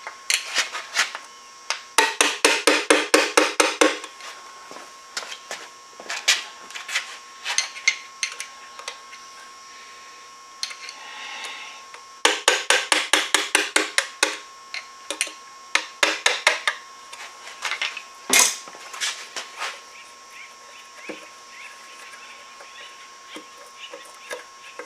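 A hammer tapping a worn gasket-separating tool to break the timing cover loose on a Chevy 327 small-block, in quick runs of about five sharp taps a second with single knocks and pauses between.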